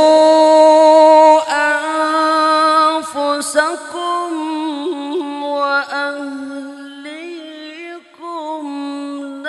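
A male qari reciting the Qur'an in the melodic tilawah style, amplified through a microphone. It opens on a loud held high note for about a second and a half, then moves into softer ornamented runs that waver up and down.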